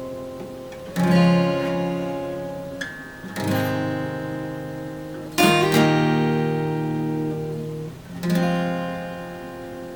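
Acoustic guitar strumming slow chords, four in all, each left to ring out and fade before the next.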